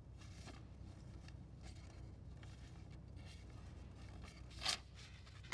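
Faint rustling and crinkling of an envelope being taken out and handled, with one short, sharper rustle near the end, over a low steady hum.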